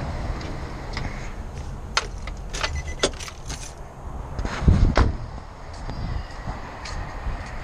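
Keys jingling with a run of sharp clicks, then a van door shutting with a thud about five seconds in.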